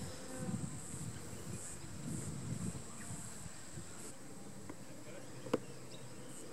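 A golf putter striking a ball once with a single sharp click about five and a half seconds in. High-pitched insect buzzing runs underneath, swelling and fading in pulses.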